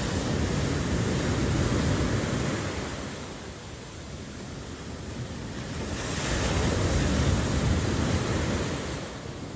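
Ocean waves breaking on a shore, two swells of surf about five seconds apart, with wind noise.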